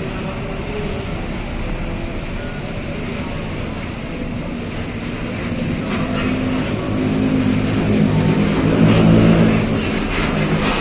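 Coach bus engine running as the bus pulls in and passes close by. Its low drone grows louder over the last few seconds and is loudest just before the end.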